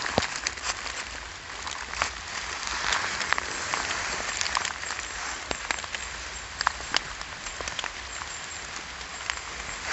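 Steady rain falling on wet leaf litter, dotted with scattered sharp clicks and light handling noise as a cep is picked out of the leaves by hand.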